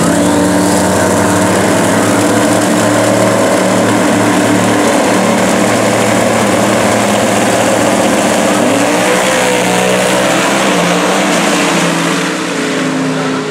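Two drag-race Camaros, one Procharger-supercharged and one twin-turbo, running loud and steady side by side on the starting line. Near the end they launch down the strip and the sound falls away a little.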